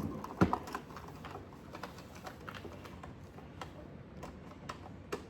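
Irregular small clicks and taps of stiff plastic packaging being handled and pried at, with a louder knock about half a second in.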